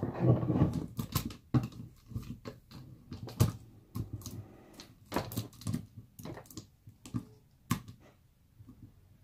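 Irregular clicks and knocks of a cordless chainsaw's plastic body and steel guide bar and chain being handled and fitted together on a wooden tabletop, with a louder clatter in the first second.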